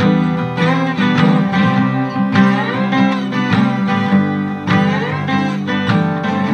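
Background music led by plucked guitar, in a country style.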